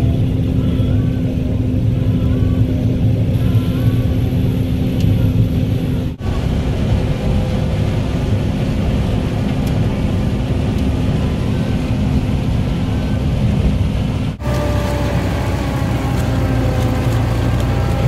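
John Deere 9500 combine harvester running under load, its engine and threshing machinery giving a loud, steady drone. The sound breaks off abruptly twice, about six and fourteen seconds in, as one clip cuts to the next.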